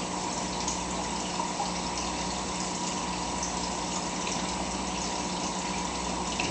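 Fish tank filter pump running steadily: water splashing and trickling over a constant low motor hum.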